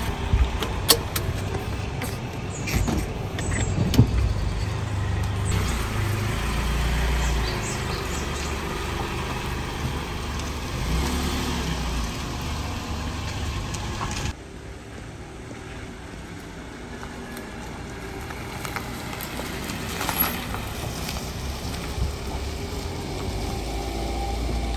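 Mitsubishi SUV running as it moves off, a steady low rumble with a few sharp clicks in the first few seconds. The sound drops abruptly about fourteen seconds in and then slowly builds again.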